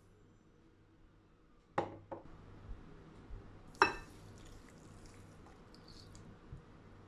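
Sharp knocks of a cup or jug against a glass bowl, the loudest about two seconds in and again about four seconds in, with a few lighter taps between. After the second knock comes a faint pour of hot water onto dry couscous.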